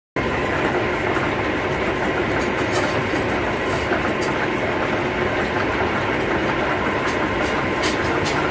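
An engine running steadily at constant speed, with a few faint clinks over it. It starts abruptly just after the beginning.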